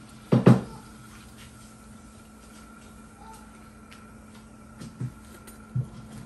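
A metal slotted spoon knocking against a wok while lifting deep-fried puri out of the oil: two sharp knocks close together about half a second in, then two softer knocks near the end.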